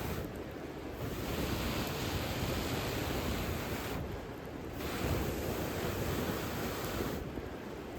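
Steady rushing of a river flowing over rocks, an even wash of noise that thins briefly in its upper part about three times.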